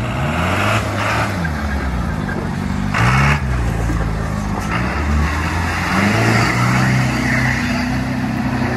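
Off-road 4x4 engine revving up and down hard under load, with short bursts of hiss about one and three seconds in.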